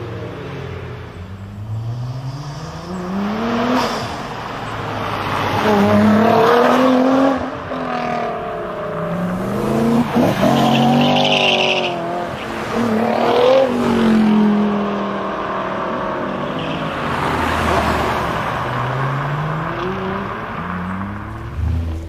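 Nissan GT-R R35's twin-turbo V6 through a Milltek exhaust, accelerating hard. The engine note climbs and drops back several times as it shifts up through the gears.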